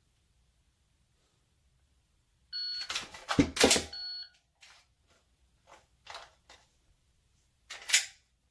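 A shot timer beeps to start and beeps again about a second and a half later for the 1.4-second par. Between the two beeps come several sharp plastic-and-metal clacks from a Glock 19 being reloaded. Scattered lighter clicks of handling follow, with one louder clack near the end.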